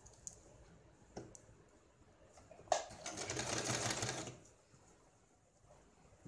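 Electric household sewing machine running in one short burst of stitching, about a second and a half long, starting about three seconds in right after a sharp click.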